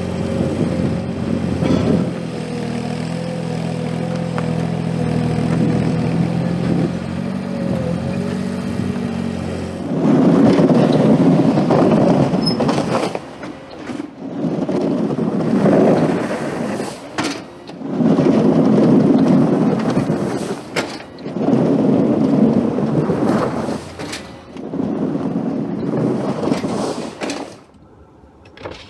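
Gehl 4835 SXT skid steer's engine running steadily with a wavering whine over it, then working in five loud surges, each two to three seconds long, as the machine pushes snow.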